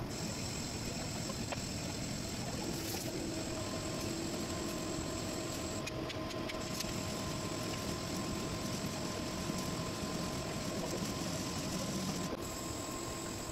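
Metal lathe running: its motor and drive give a constant mechanical hum with a few held steady tones.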